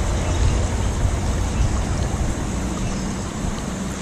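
Shallow river water flowing and rushing, with a strong low rumble underneath that eases off over the last couple of seconds.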